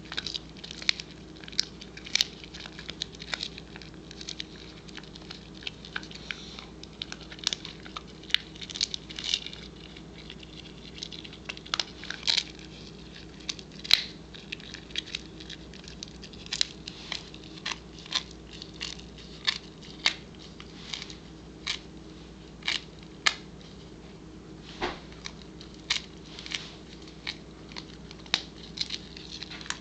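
Pembroke Welsh Corgi gnawing a dried beef Achilles tendon chew: irregular sharp cracks and crunches, one to a few each second.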